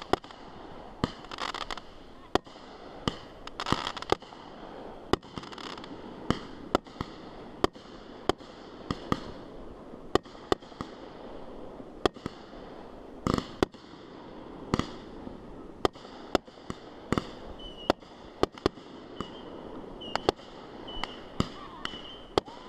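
Aerial fireworks exploding at a distance: an irregular string of sharp bangs, about one or two a second. A longer, heavier boom comes about thirteen seconds in.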